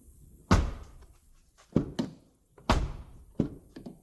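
Dodge Ram pickup door being worked: two heavy thunks of the door shutting and latching, about two seconds apart, with lighter latch clicks in between and after, as the newly replaced door handle is tested.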